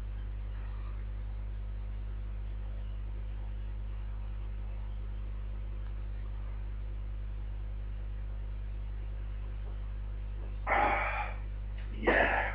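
A steady low electrical hum, with no clear gulping heard, while a man chugs from a 40 oz bottle of malt liquor. About eleven seconds in come two loud, short gasping exhales as he comes up from the long drink.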